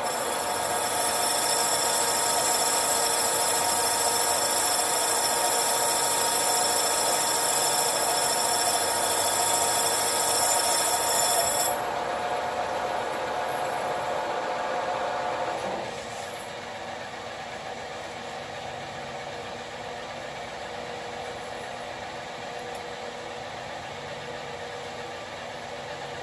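Engine lathe turning a large thin-walled tube in its three-jaw chuck, the cutting tool on the work giving a steady high-pitched ringing whine. The cut stops suddenly about twelve seconds in. A few seconds later the lathe runs down, leaving a fainter steady hum.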